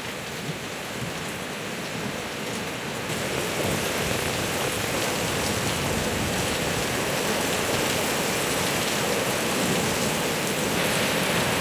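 Heavy rain pouring down in a steady hiss, which grows louder about three seconds in.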